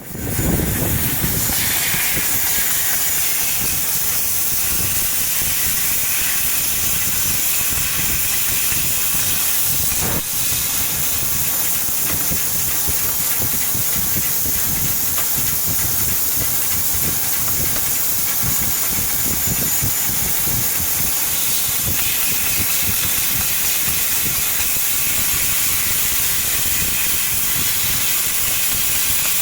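CNC laser cutting machine running while cutting shelf frame parts: a steady, loud hiss of the cutting head's gas jet, with a single sharp click about ten seconds in.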